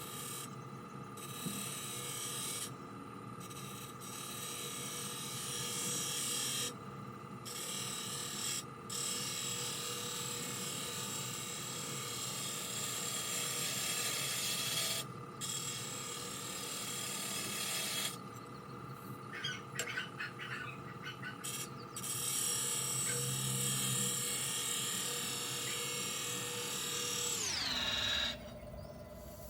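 Wood lathe spinning a goncalo alves blank while a spindle gouge cuts it. The cutting hiss breaks off and returns several times as the gouge comes off the wood. Near the end the lathe's motor whine falls in pitch as it winds down.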